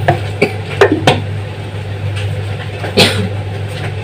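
A steady low hum with several short knocks and clacks of things being handled, the loudest about three seconds in.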